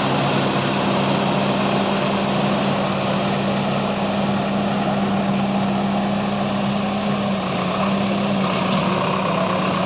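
Backhoe loader's diesel engine running steadily, its pitch dipping slightly about eight seconds in.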